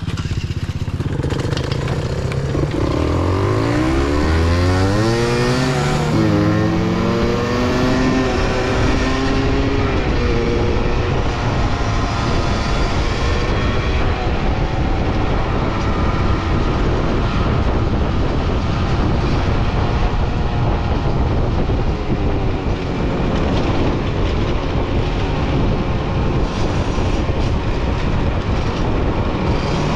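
Motor vehicle engine accelerating hard, its pitch rising in several steps through gear changes over the first ten seconds, then running on at a steady speed.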